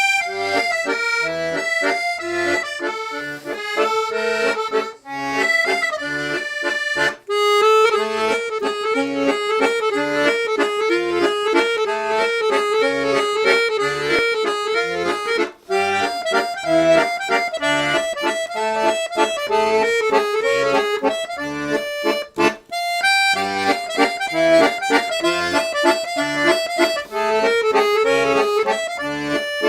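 Black Parrot Condor chromatic B-system button accordion being played: a melody on the treble side over a regular bass-and-chord accompaniment from the bass buttons, with a few brief pauses between phrases.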